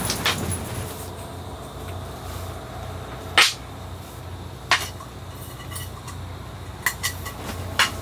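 Stew simmering in an aluminium mess tin on a small gas camping burner: a steady low rumble with a few sharp ticks and clinks. The loudest tick comes about three and a half seconds in.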